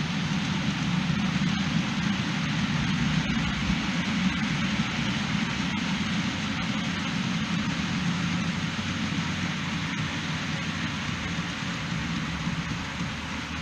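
OO gauge model train running along the layout's track: a steady rumble of motor and wheels with a few faint clicks, slowly getting quieter near the end.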